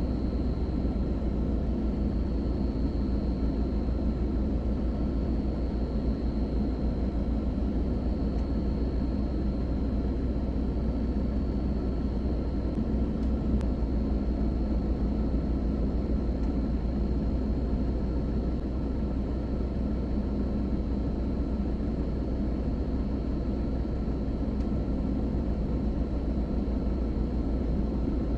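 Heavy diesel machinery running steadily, a low rumble with a thin high whine above it.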